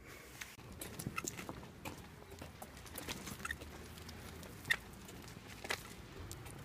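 Scattered, irregular soft taps and ticks of footsteps and a pushchair on a wet pavement, over a faint low background rumble.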